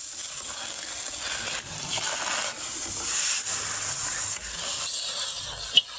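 Stir-frying in a wok: a wooden spatula scrapes and tosses chopped scallion, garlic and shredded potato through hot oil with a steady sizzle. There is one sharp click near the end.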